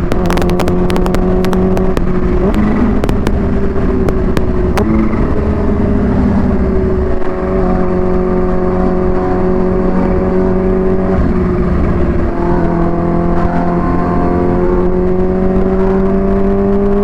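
Supercharged Kawasaki Ninja H2 inline-four running through a Vandemon exhaust under way, its note climbing slowly and stepping down at each of several gear changes, with wind buffeting on the microphone.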